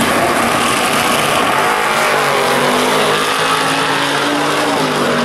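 A 1969 Chevrolet Chevelle and a 1941 coupe drag car launching together at full throttle and accelerating hard down the strip. The loud engine note climbs in pitch, then dips briefly near the end.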